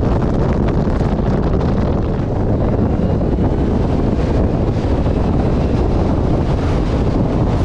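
Steady wind rush buffeting the microphone of a camera mounted on a moving car, with road noise from driving underneath.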